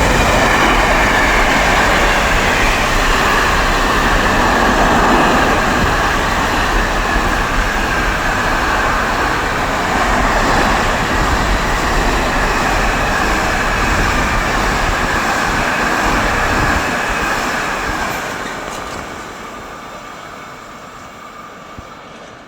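Container freight train hauled by an E.494 electric locomotive passing through a station at speed: a loud, steady rush of wheels on rail with a high ring over it for about seventeen seconds, then fading away as the train recedes.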